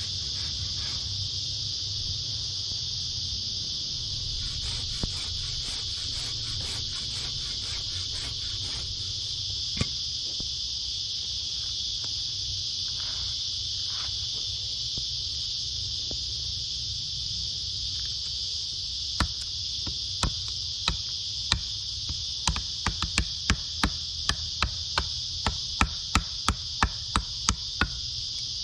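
Steady high-pitched insect chorus throughout. From about two-thirds of the way in, a tool strikes timber in sharp knocks about twice a second, coming faster toward the end, as wood is worked for a bush table.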